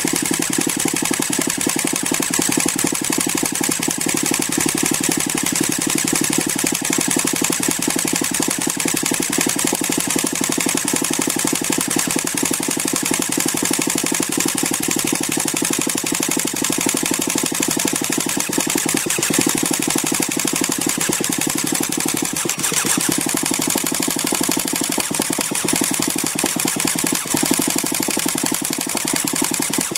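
Small gas engine of an RC truck turning over steadily at a fast, even rate, without revving up or dying.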